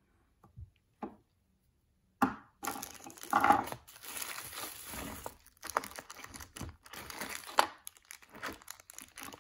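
Clear plastic bags crinkling and rustling as hands rummage in a cardboard box of packed metal miniatures, starting about two seconds in, with sharp crackles and clicks throughout.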